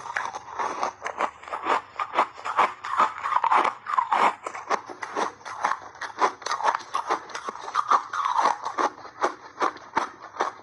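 Refrozen block ice being bitten and chewed close to the microphone: a rapid, irregular run of crisp, crackling crunches.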